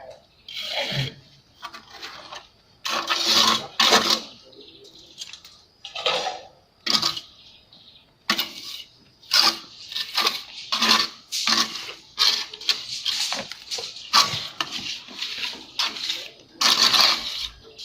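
Steel plastering trowel scraping and clinking as wet render is worked onto a wall, in irregular strokes about one or two a second.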